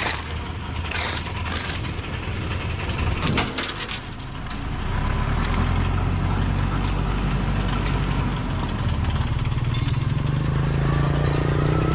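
An engine running, with a knock about three seconds in; from about four seconds the engine hum is steady, then it rises in pitch near the end.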